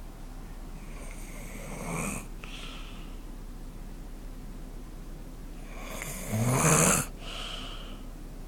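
Snoring in sleep: two snoring in-breaths, a fainter one about a second in and a much louder one about six seconds in, each followed by a short breathy out-breath.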